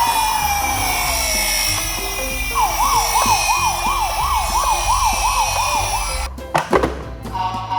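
A siren slowly rising and falling, then a fast warbling siren of about three wails a second, over background music with a steady bass. A few sharp knocks come near the end.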